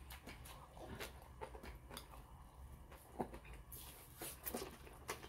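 Quiet eating sounds: seaweed soup (miyeokguk) being slurped and chewed from a bowl held to the mouth, with scattered soft clicks and smacks of chopsticks and lips. A short slurp comes about four seconds in.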